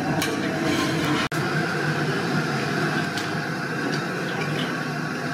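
Steady low hum of background noise with a few faint light clicks, broken by a sudden brief dropout about a second in.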